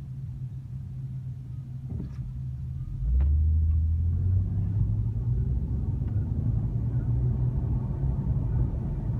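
Car engine and road noise heard from inside the cabin while driving, getting louder about three seconds in as the engine note rises. There are a couple of light clicks just before the rise.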